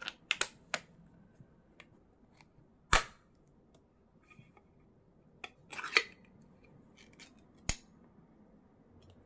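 Clear plastic cap prised off a can of eight-treasure congee, then the can's ring-pull metal lid popped and peeled open: a series of sharp clicks and snaps, with single loud clicks about 3 s in and near the end and the loudest cluster around 6 s.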